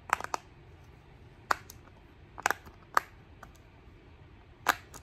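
Bubbles of a Pop It fidget toy being pressed, giving about half a dozen sharp, irregularly spaced pops.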